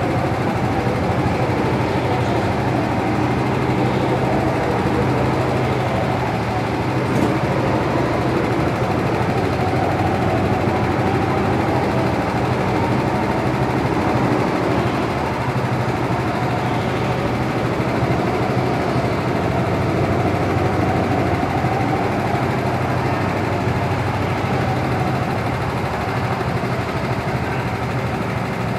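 Go-kart engine idling steadily while the kart stands still.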